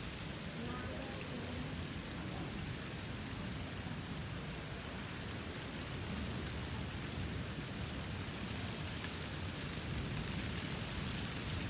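Strong wind and light rain in a storm, making a steady rushing noise with no distinct thunderclap.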